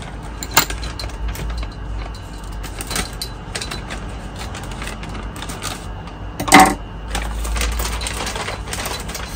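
Handling noise from a speargun being picked up and handled: scattered clicks and light knocks, with one sharp, louder knock about six and a half seconds in.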